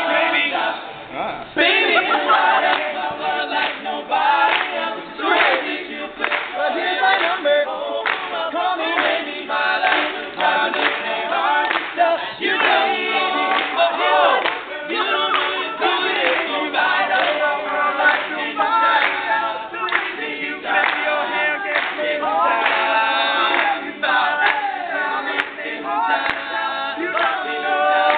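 Young men's a cappella group singing a pop song in close harmony, several voices at once with no instruments.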